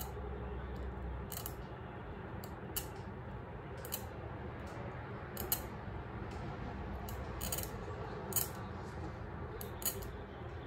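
A Gracey 15-16 curet's metal tip scraping along plastic typodont teeth in short scaling strokes, about eleven brief sharp scrapes at uneven intervals, over a steady low hum.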